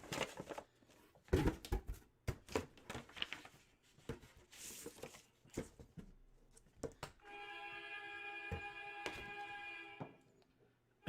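Light clicks, knocks and a brief rustle of packaging from hands handling items on a table. About seven seconds in, a steady sustained musical tone, several pitches held together, starts and holds, then drops away just before the end.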